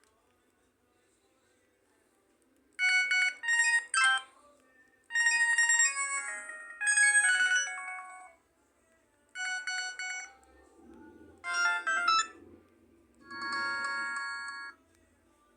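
Sony Ericsson K330a mobile phone playing ringtone music: short phrases of bright synthesized notes separated by brief pauses, starting about three seconds in.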